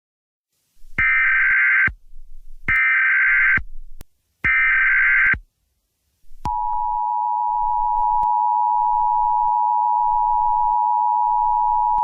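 Emergency Alert System SAME header: three short bursts of screeching digital data tones, each about a second long. About six and a half seconds in, the steady two-tone EAS attention signal starts and holds.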